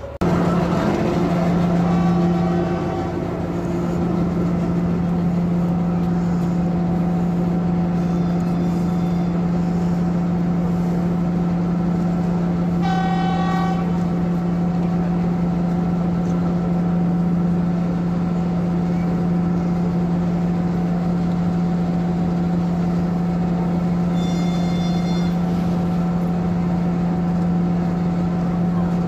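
Diesel train engine running with a steady low drone. Short train horn toots sound about four times over it, the clearest about halfway through.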